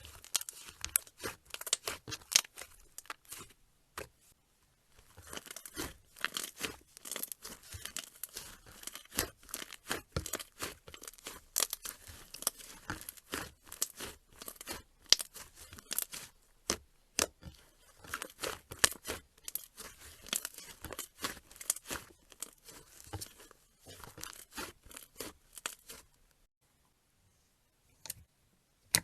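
Slime being squeezed and stretched by hand, giving dense runs of sharp crackling and popping clicks. It pauses briefly about four seconds in and stops about two seconds before the end.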